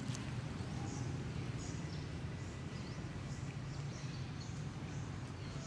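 Forest ambience: short, high bird chirps repeating irregularly, a couple of times a second, over a steady low hum.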